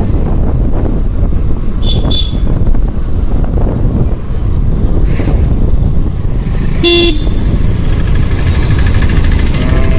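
Motorcycle riding along a road, its engine and wind rumbling steadily into a helmet-mounted phone's microphone. A vehicle horn toots briefly about two seconds in and again about seven seconds in.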